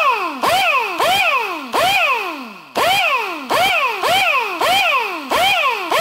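Ingersoll Rand 2235TiMAX air impact wrench spinning free, with no load, in about ten quick trigger pulls. Each pull spins the air motor up to a high whine that then winds down. It is running on newly fitted high-flow V-style air fittings, and the owner hears it as running so much better.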